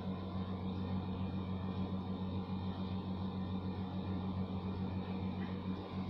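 Steady low hum with a faint hiss of background noise, unchanging throughout.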